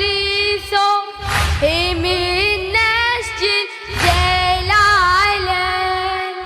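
A boy's voice singing a Shia Muharram lament (latmiya), holding long wavering notes over a deep pulsing beat with a sharp stroke every few seconds. The beat drops out briefly just before a second in, again past the middle, and near the end.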